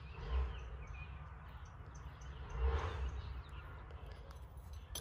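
Quiet outdoor ambience: faint bird chirps and insects over a low rumble that swells briefly about half a second in and again around the three-second mark.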